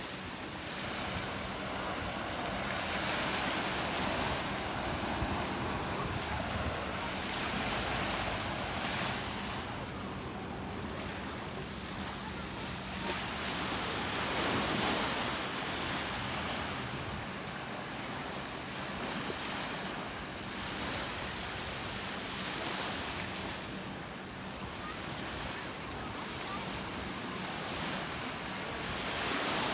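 Ocean surf breaking and washing up the beach, the rush swelling and fading every several seconds.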